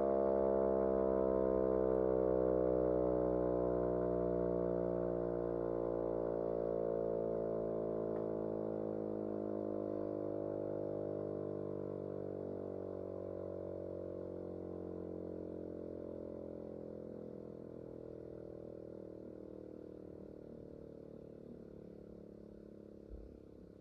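Miniature Federal Signal STH-10 siren, driven by a single-phase Maytag induction motor, winding down after power-off: its tone slides slowly lower and fades over more than twenty seconds. A small knock sounds near the end.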